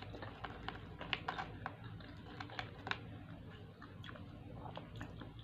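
Close-up eating sounds: fried chicken being pulled apart by hand and chewed, heard as irregular soft clicks and smacks, most of them in the first three seconds.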